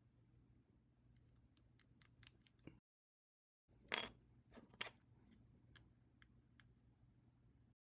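A string of light clicks and ticks, with two sharper snaps about four and five seconds in. The sound drops out to dead silence twice.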